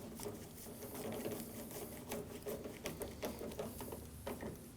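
Hand ratchet clicking in rapid, uneven runs while it snugs up the screw that holds the exterior door handle in place.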